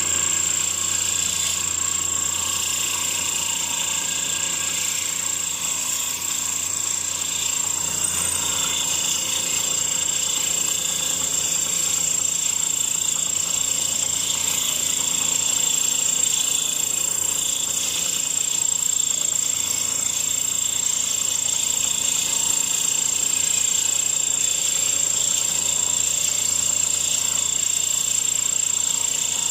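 Small 10-inch band saw running steadily with a constant high whine, its thin blade cutting through a workpiece.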